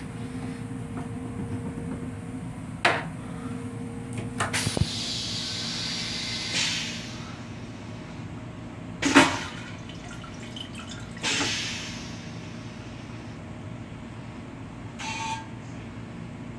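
Flush cycle of an M7 railcar toilet: a couple of clicks as the flush is worked, then water hissing into the stainless steel bowl, a sharp bang about nine seconds in, and a second short rush of water. The railcar's steady running hum sits underneath.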